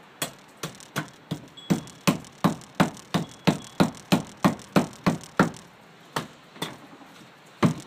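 Repeated chopping strikes of a blade into a wooden branch, about three a second, pausing briefly twice, as a latch notch is cut into it.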